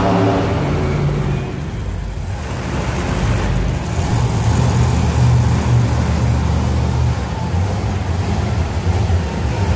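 Monster truck engines running and revving in a large indoor arena, a low, steady rumble that swells and eases.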